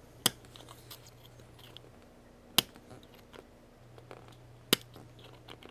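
Flush-cutting pliers snipping through stiff steel LED leads on a circuit board: three sharp snaps about two seconds apart, with faint handling ticks between them.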